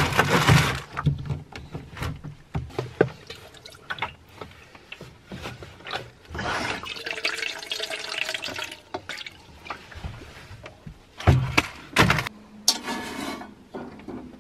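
Water pouring from the spigot of a plastic water jug into a steel pot for a few seconds, about six seconds in, with knocks and clunks of handling the jug and pot around it. Near the end the pot is set down with a loud clatter on a camp stove's metal grate.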